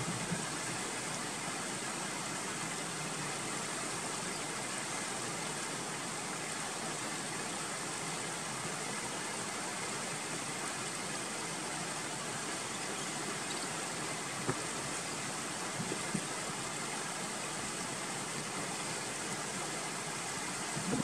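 Shallow stream water flowing and rippling over rocks, a steady even rushing.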